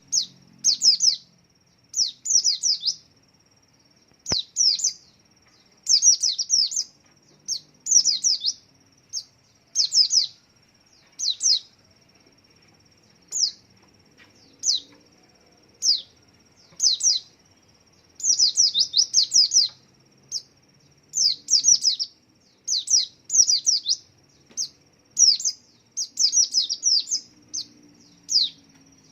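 White-eye (pleci) singing: clusters of quick, high, falling chirps that come every second or two, with short gaps between them. A faint steady high whine runs underneath.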